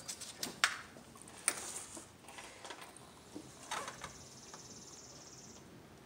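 Light plastic clicks and knocks of an ignition coil and spark plug tester being handled and pushed into place on the engine, a few sharp ticks in all. A faint high-pitched buzz runs through the middle.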